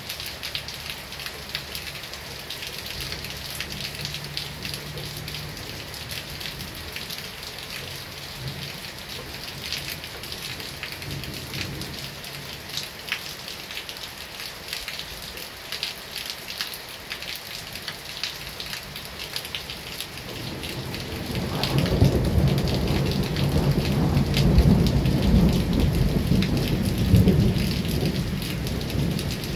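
Heavy rain falling steadily, with many sharp drop ticks close by. About two-thirds of the way through, a long roll of thunder comes in, the loudest sound of all, and eases off near the end.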